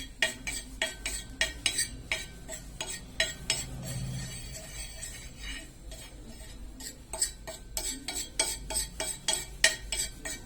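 A metal utensil scraping and clinking on an iron tawa, stirring black salt and turmeric as they dry-roast. Quick, irregular strokes, thinning out for a couple of seconds near the middle.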